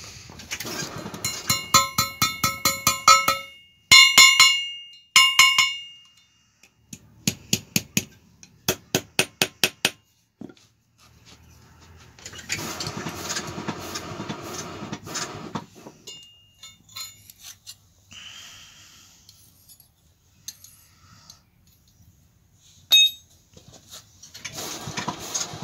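Blacksmith's hammer striking hot iron on an anvil while forging a trident, in quick runs of blows: the first blows ring with clear metallic tones, later ones are duller. A few seconds of steady rasping noise in the middle, then scattered knocks.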